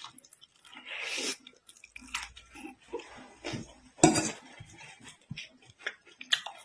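A person chewing a mouthful of chow mein noodles close to the microphone, with irregular wet smacks and a few small clinks of cutlery against the plate. The loudest smack comes about four seconds in.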